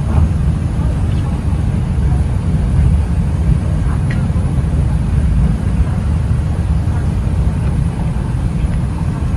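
Train carriage running at speed, heard from inside: a steady, loud low rumble of the train on the track.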